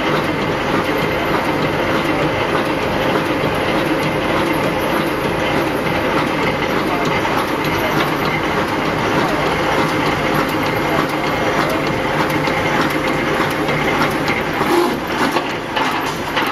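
Fully automatic wire mesh welding machine running steadily: a continuous, dense rattle of rapid clicks with a faint steady hum underneath, and a few louder clicks near the end.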